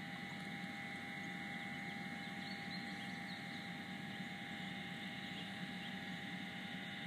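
Steady hum inside a stopped car's cabin, from its idling engine and ventilation fan, with no sudden sounds.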